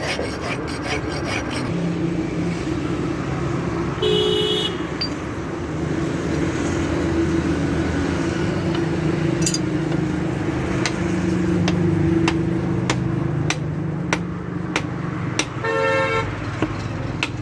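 Steady traffic hum with a vehicle horn tooting twice, briefly about four seconds in and again near the end, and a run of sharp clicks in the second half.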